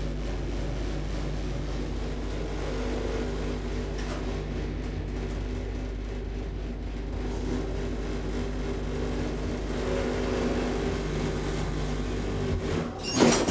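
Telescopic hydraulic elevator running: a steady mechanical hum of the hydraulic drive heard inside the moving car. Near the end the hum cuts off as the car arrives, and louder noise breaks in just before the end.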